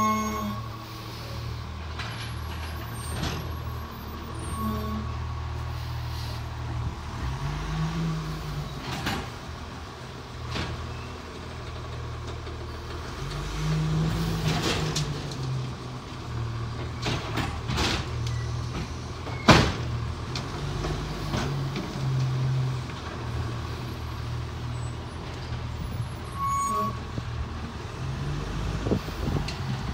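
Autocar ACX garbage truck's natural-gas engine running steadily, revving up and back down twice as the McNeilus Autoreach hydraulic arm lifts and dumps a green-waste cart. There are scattered knocks, and one loud bang about two-thirds of the way through.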